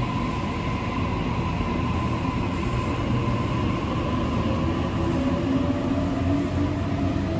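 Sydney Trains Waratah A-set double-deck electric train pulling out of the platform and gathering speed, with a steady rumble of wheels on rail. A steady high electric whine runs throughout, and about halfway through a second, lower whine joins it and climbs slowly in pitch as the train accelerates.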